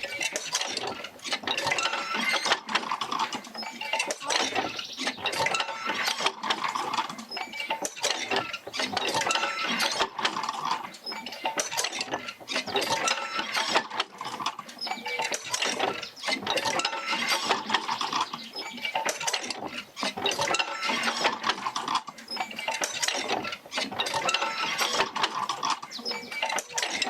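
Oil-field field wheel and its jerker lines working: a continuous clanking and creaking of wood and iron linkages, swelling and easing in a slow cycle every few seconds as the Fitzgerald rig's stroke is passed out to the pumps.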